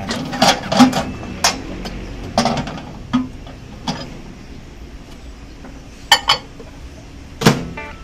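Clinks and knocks of a microwave oven's glass turntable plate being set in place by hand, then the microwave door swinging shut with a latch clack near the end.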